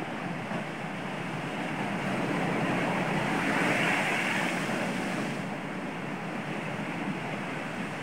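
Sea surf breaking against a low rocky shore ledge and foaming water washing across it. One wave swells to its loudest about four seconds in, then subsides.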